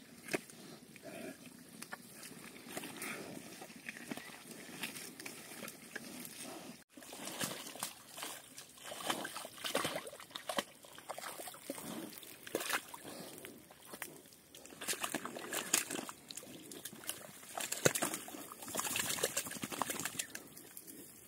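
Pigs wallowing and splashing in shallow running water and mud, with irregular sloshes and splatters.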